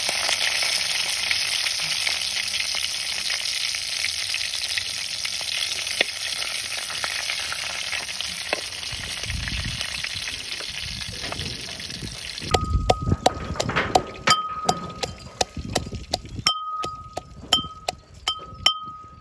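Green chillies with fennel and cumin seeds sizzling in hot oil in a clay pot, the sizzle slowly dying down. About twelve seconds in it gives way to a stone pestle pounding garlic in a stone mortar: a quick run of sharp knocks with a ringing tone.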